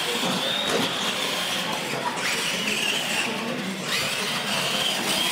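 Electric R/C monster trucks racing, their motors and gears giving a high whine that climbs in pitch as they accelerate, drops back and climbs again twice.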